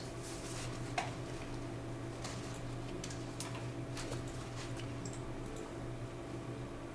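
A few scattered computer mouse clicks over the steady hum of a projector's cooling fan.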